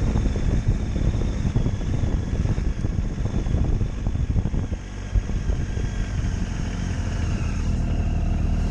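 Motorcycle engine running at low speed, with a rough, uneven rumble. It drops briefly about five seconds in, then builds steadily as the bike pulls away.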